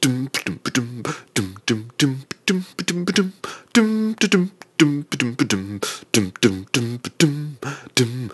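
A man singing a tune to himself in short wordless 'dum dum dum' syllables, about three a second, with one longer held note about four seconds in.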